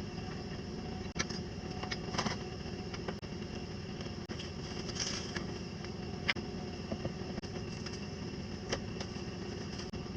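A 1995 Ford Ranger pickup's engine idling steadily, with a few light clicks and knocks scattered over it.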